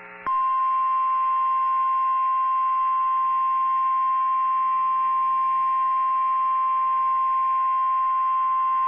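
NOAA Weather Radio warning alarm tone: one steady, unbroken high beep starting about a third of a second in, heard through a weather radio receiver over faint static. It signals that a weather warning is about to be read.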